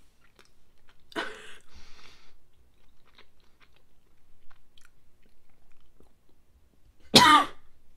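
A woman coughs twice, about a second in and again more loudly near the end, with a breathy exhale after the first cough and faint chewing clicks in between, as she struggles with a mouthful of Marmite.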